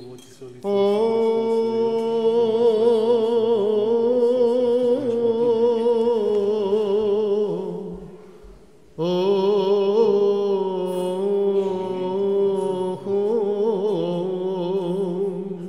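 Unaccompanied Byzantine chant: a church chanter singing long melismatic phrases with wavering ornaments, breaking briefly for breath about eight seconds in.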